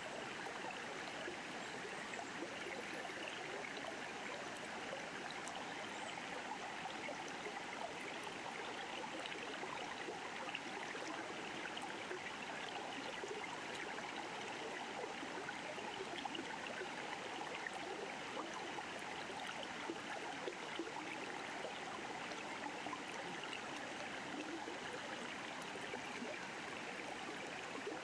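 River flowing over rocks: a steady, even rush of water.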